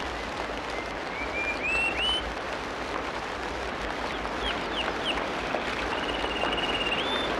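Tropical rainforest ambience: a steady rain-like hiss with birds calling over it. A run of rising whistled notes comes about a second in, a few short slurred notes follow midway, and a long trill near the end sweeps up at its close.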